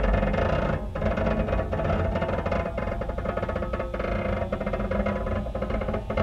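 Instrumental film score: a held, rapidly fluttering mid-pitched tone over a steady low bass, with brief dips about a second in and again near four seconds.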